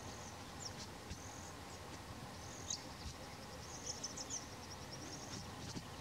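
Short high-pitched chirps repeating about once a second, with a quick ticking trill about four seconds in, over a faint steady hiss.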